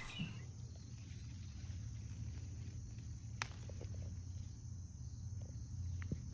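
Hands working through pepper plants, with a sharp snap about three and a half seconds in and a smaller one near the end, over a steady high insect trill.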